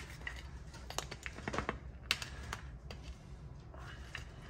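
Light, irregular clicks and taps of hands handling small objects and packaging on a tabletop, thinning out in the last couple of seconds.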